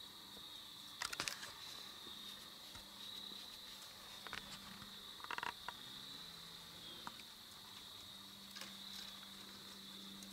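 Faint woodland ambience: a steady high-pitched insect drone, with a few short clicks and rustles about a second in and again around five seconds.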